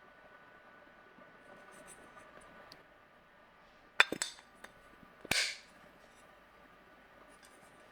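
Hard kitchenware clinking: a sharp clink about four seconds in with a few quick light ticks after it, then another click about a second later followed by a short hiss. A faint steady hum runs underneath.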